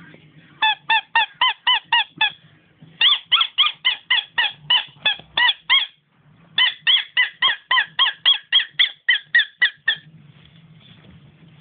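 A dog's high-pitched squeaks in place of barks, rapid and evenly spaced at about five a second, in three runs broken by short pauses.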